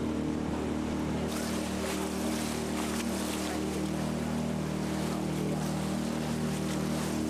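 A boat's engine running at a steady pace, a low even hum, with a rushing hiss of water and wind that strengthens about a second in.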